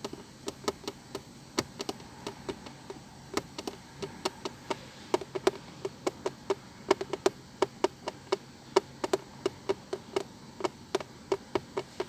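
A rapid, uneven series of sharp clicks or taps, about four a second, over a faint hiss.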